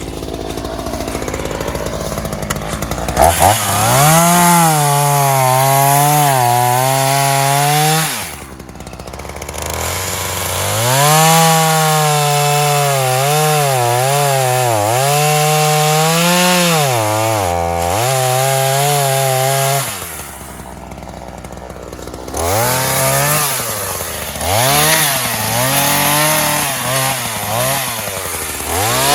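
Two-stroke Ryobi gas chainsaw idling, then opened up three times, for about five, ten and seven seconds, with the engine speed wavering as it bogs and picks up under load while cutting vines and small trees. It drops back to a low idle between the cuts.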